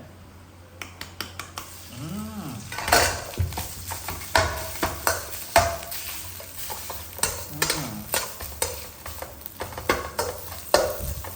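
Food frying in hot oil in a pan, sizzling steadily while a utensil stirs and scrapes it, with repeated sharp clicks of metal against the pan.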